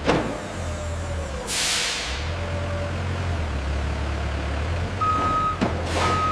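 Heavy industrial machinery with a steady low rumble. A sharp hiss of released air comes about a second and a half in, and two steady electronic beeps sound near the end.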